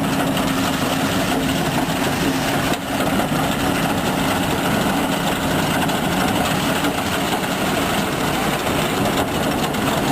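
International IH 750 PTO tub grinder running steadily off a tractor's power take-off: a constant mechanical drone with a steady hum, dipping briefly about three seconds in.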